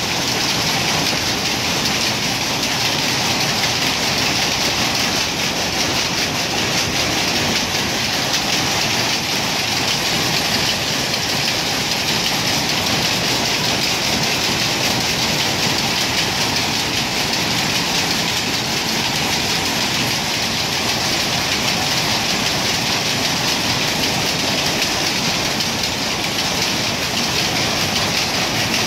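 Power looms running together in a weaving shed: a loud, steady, dense clatter that does not let up.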